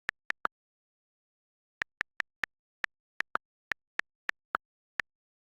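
About fifteen sharp, irregular clicks or taps with dead silence between them. There is a pause of more than a second after the first three, then the clicks come quickly again.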